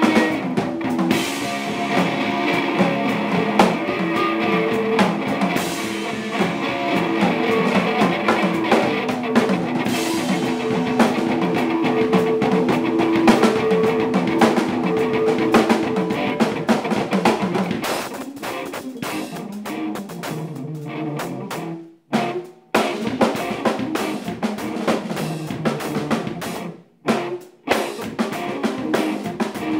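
Band playing an instrumental passage on drum kit and guitar with no vocals; the music stops dead twice near the end, for a fraction of a second each time, before coming back in.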